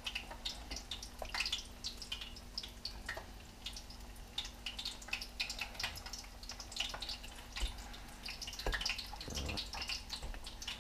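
Scattered small wet clicks and drips of hands dipping brook trout in beaten egg and pressing them into breadcrumbs, over a faint steady hum.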